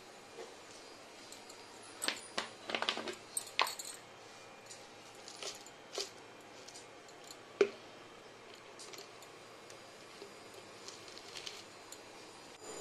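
Scattered light clicks and metallic clinks of kitchen things being handled on a countertop, a quick cluster about two to three and a half seconds in and a single sharper knock about seven and a half seconds in.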